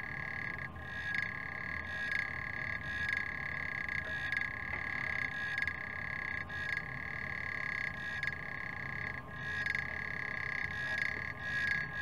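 African clawed frog (Xenopus) calling: a continuous high trill that swells in a regular rhythm a little under once a second.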